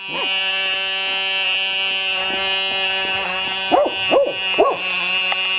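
RC car's motor running at a steady pitch, with three short yelping barks in quick succession about four seconds in.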